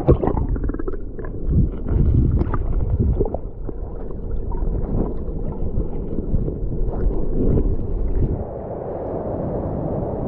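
River current heard through a GoPro held underwater: a muffled, rumbling gurgle with scattered knocks and pops.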